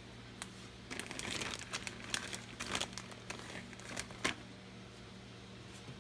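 Thin plastic bag crinkling as it is handled and a syringe is drawn out of it: a run of rustles and crackles from about a second in until just past four seconds.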